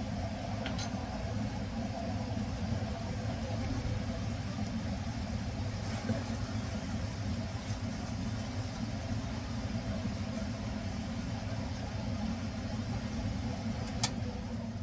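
Kitchen exhaust fan running with a steady low hum, with a sharp click near the end.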